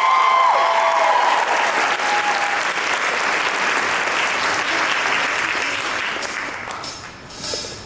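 Audience applauding after a show choir number. Just after it begins, the choir's held final chord cuts off. The applause fades away near the end.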